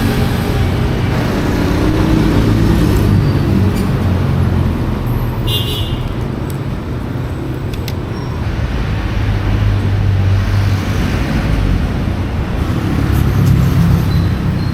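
Street traffic: vehicle engines running and passing in a steady low rumble.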